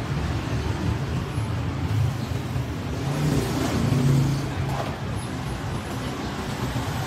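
Steady low rumble of motor vehicles, like road traffic.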